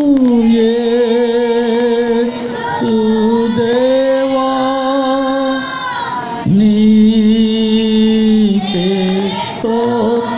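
A man singing a Christian worship song into a microphone, drawing out long held notes with a slight waver, each lasting one to three seconds.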